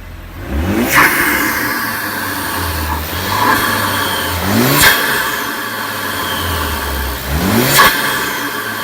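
2016 Ford Focus RS's 2.3-litre turbocharged four-cylinder, breathing through a newly fitted Roush cold air intake, idling and revved three times. Each rev climbs quickly in pitch to a sharp peak, then drops back to idle.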